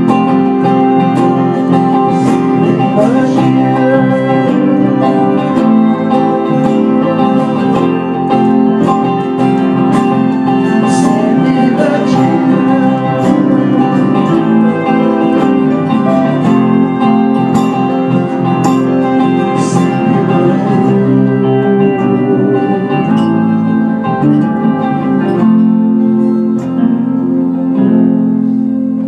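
Live band music led by acoustic guitar, playing steadily and getting quieter over the last few seconds.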